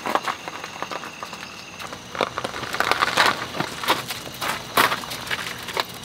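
Irregular crunching and rustling: footsteps on gravel together with a mesh mosquito net being handled and pulled, busiest in the middle.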